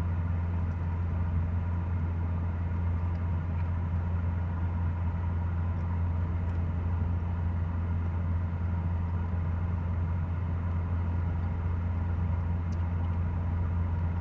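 Steady low hum of an idling car engine, even and unchanging throughout.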